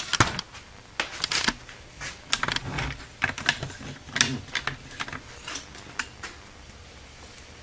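Irregular metallic clicks and clinks of automatic transmission parts being handled: an oil-pump assembly set down and shifted on a clutch drum on a steel workbench.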